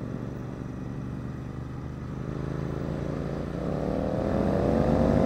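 Royal Enfield Continental GT 650's parallel-twin engine pulling under acceleration, its note rising steadily in pitch and growing louder through the second half.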